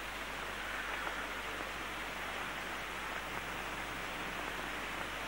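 Steady hiss with a low hum underneath, no music or voices: the background noise of an old television soundtrack.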